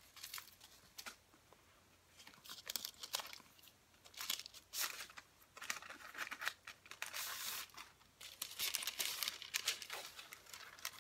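Tissue paper rustling and crinkling as a wallet is pulled out and unwrapped from it, in irregular bursts.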